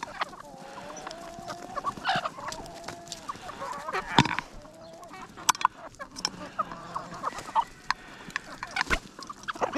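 A flock of domestic hens and roosters clucking while they feed, with short repeated calls. Sharp clicks of beaks pecking at a metal pot come through the calls, the loudest about four seconds in.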